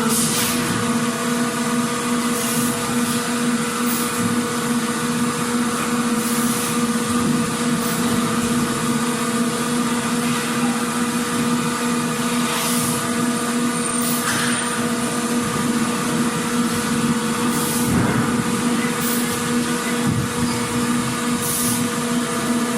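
Factory machinery running with a constant, steady hum, broken every few seconds by short bursts of hiss.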